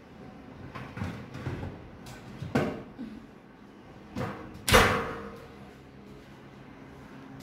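Metal oven rack clattering as it is pushed into the oven, then the oven door of an Armco cooker swung shut with a loud bang about halfway through, ringing briefly after.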